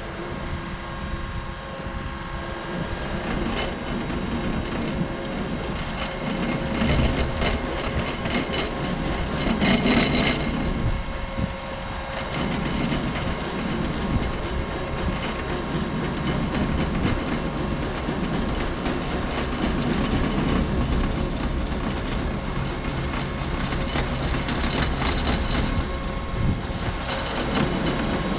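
ASV RT40 compact track loader running steadily while it drives a Harley rake through loose soil, growing briefly louder about ten seconds in.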